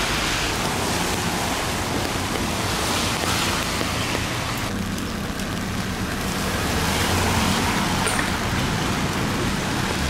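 Steady rain with the hiss of traffic on a wet street.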